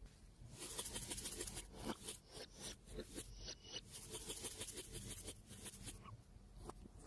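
Slime being worked by hand, a faint run of small crackling clicks and squishes that dies away near the end.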